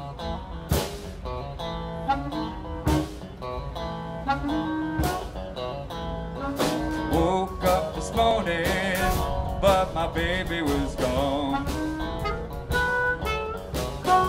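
Live blues band playing an instrumental intro: electric guitar and drum kit, with a harmonica playing wavering bent notes over them and cymbal strikes every couple of seconds.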